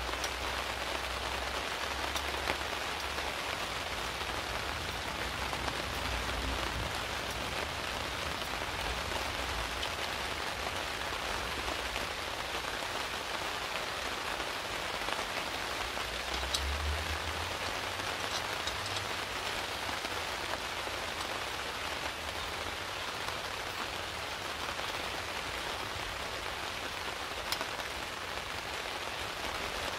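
Steady rain falling on a tarp shelter overhead, with a few sharper single drop impacts.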